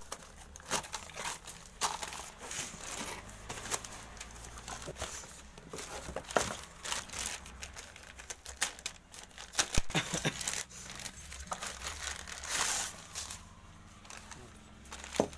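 Packaging being handled: a plastic bag crinkling and rustling, with cardboard box sounds, as a new motorcycle-type engine cylinder block is unwrapped. Irregular crackles throughout, with a sharp knock about two-thirds of the way in.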